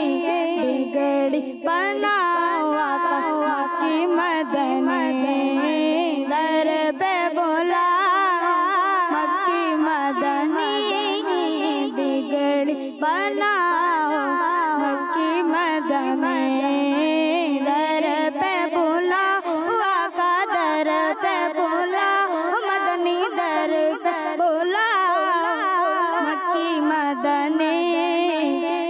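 A high voice singing a naat unaccompanied, in long, wavering, ornamented phrases, with short breaths about a second and a half in and again about thirteen seconds in.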